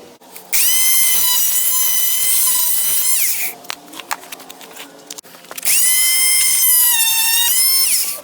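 Oscillating multi-tool plunge-cutting into rotted wooden door trim: a high-pitched whine in two runs of about three seconds each, with quieter clicks and knocks between them.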